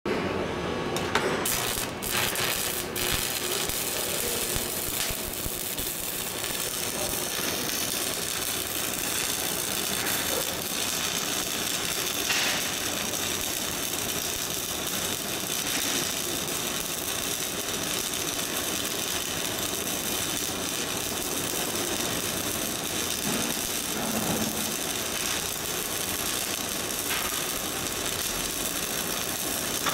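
Shielded metal arc (stick) welding: the arc of a flux-coated electrode crackles and sizzles steadily as a vertical bead is run up a steel plate. There are a few sharp cracks in the first couple of seconds as the arc starts.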